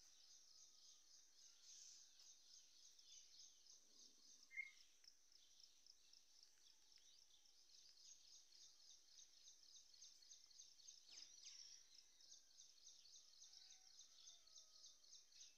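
Faint outdoor ambience: a steady, high-pitched, rapidly pulsing trill of insects, with one short bird chirp about four and a half seconds in.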